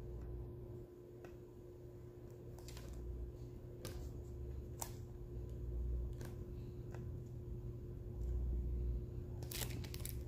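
Sparse light clicks and taps of a diamond-painting drill pen picking up resin drills and pressing them onto the canvas, a few spaced seconds apart with a quick cluster near the end, over a faint steady hum.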